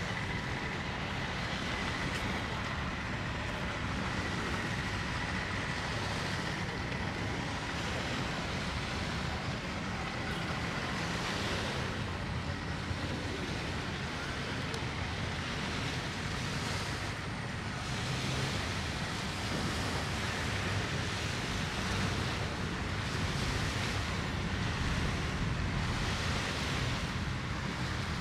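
Beachfront ambience: small sea waves washing in steadily, mixed with traffic passing along the beach road, swelling a little now and then.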